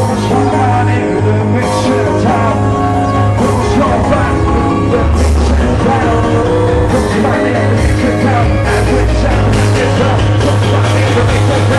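Loud breakbeat electronic music played live from DJ controllers and a keyboard, with a heavy bass line under a busy broken drum beat.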